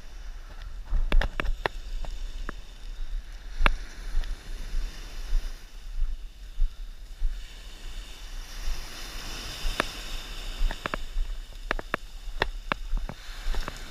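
Surf washing up a coarse-sand beach, swelling as a wave runs in, under a steady low rumble, with many scattered sharp clicks and crunches at irregular moments.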